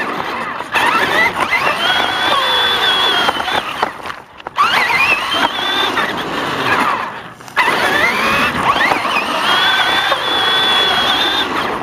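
Electric RC car's motor whining at close range, its pitch rising as it speeds up and holding high at full throttle. It dies away twice, about four and seven seconds in, and winds back up each time.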